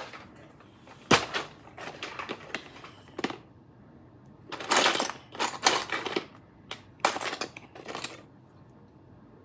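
Small clay cutters being picked through and handled: a string of sharp clicks and short clattering rattles, with a loud click about a second in and the busiest clatter around the middle.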